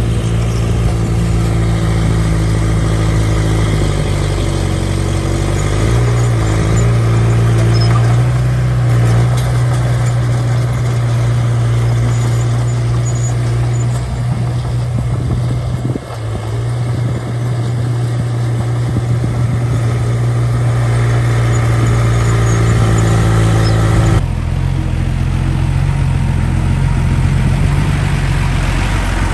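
Small bulldozer's diesel engine running steadily as it works, with a deep, even engine note; the tone changes abruptly about 24 seconds in.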